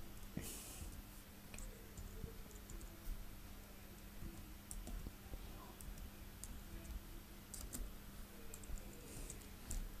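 Slow, faint typing on a laptop keyboard: a few scattered keystrokes spread over several seconds as a word is typed out letter by letter.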